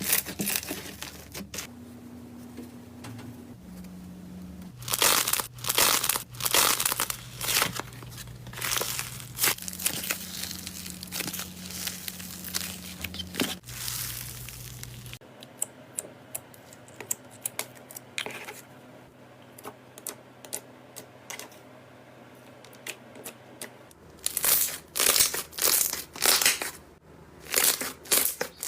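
Slime being squeezed and pressed by hand, giving off clusters of sharp crackles and clicks, loudest in two bursts of handling, with quieter squishing between.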